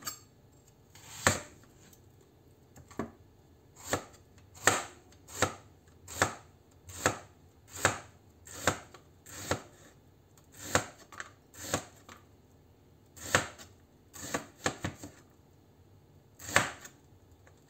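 Chef's knife slicing a red onion on a plastic cutting board: a series of single cuts, each ending in a sharp knock of the blade on the board, about one a second with a few short pauses.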